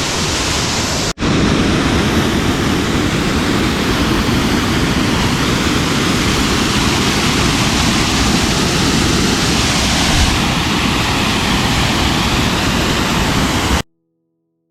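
Loud, steady rush of a waterfall. It breaks off for an instant about a second in, then cuts out abruptly near the end.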